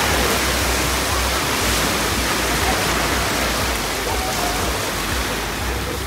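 Small sea waves breaking and washing up onto a sandy beach, a steady rushing hiss, with wind rumbling on the microphone.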